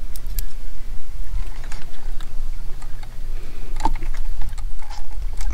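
Scattered light metallic clicks and taps as a band clamp is handled and fitted over a metal replacement coolant outlet fitting, over a steady low rumble.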